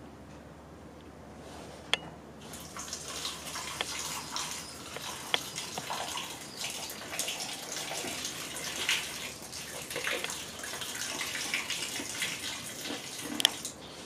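Salt water pouring and splashing onto a plastic power strip and the stone paving around it, beginning a couple of seconds in, with a few sharp clicks along the way.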